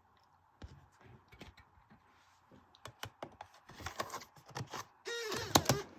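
Scattered light clicks and taps, like keys or a disc and its case being handled, growing busier from about three seconds in. Near the end comes a louder, pitched, voice-like sound.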